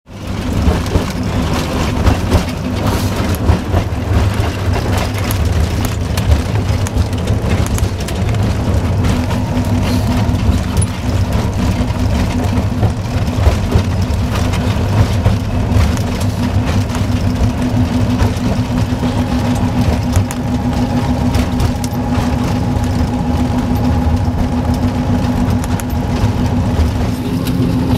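TU4 narrow-gauge diesel locomotive running under way, its diesel engine loud and steady as heard inside the cab, with frequent short knocks and rattles. A steady higher tone joins the engine sound about two-thirds of the way through.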